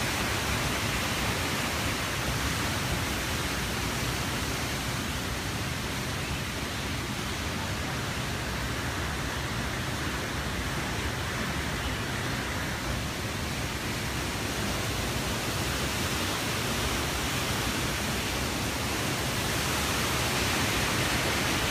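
Rushing water of the creek in the canyon below: a steady, even hiss, slightly louder near the end.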